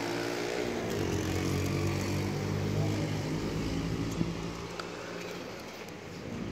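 Low, steady engine hum with an even pitch, fading after about four and a half seconds, with one sharp tick near the middle.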